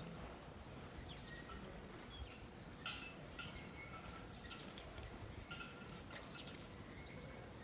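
Faint outdoor street ambience: a low steady hum with scattered short, high chirps and clicks.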